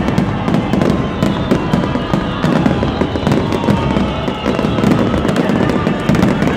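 Fireworks display: many aerial shells bursting together in a dense barrage, a rapid, unbroken stream of bangs and crackles over a low rumble.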